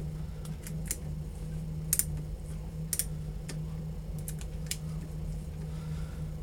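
Metalworking lathe running with a steady low hum, with a scattered series of light, sharp clicks and ticks of metal on metal.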